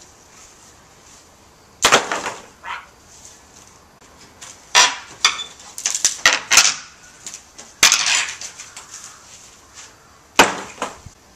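Rotten wooden fence boards being wrenched and broken off by hand: a string of sharp wood cracks and clattering knocks in several clusters, with quiet gaps between.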